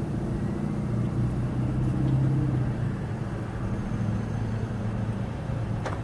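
An engine running with a steady hum, its pitch and loudness rising to a peak about two seconds in, then easing off and carrying on more evenly.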